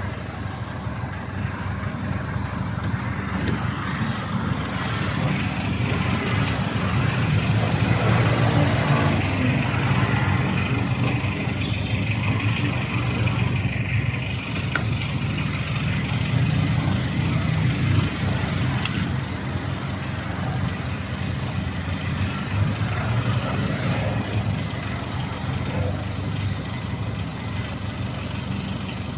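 A vehicle engine idling nearby, a steady low rumble that swells slightly between about seven and eighteen seconds in.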